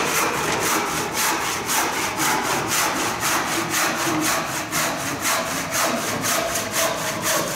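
Crosscut handsaw cutting through a wooden board in steady, full-length back-and-forth strokes, a little over two a second.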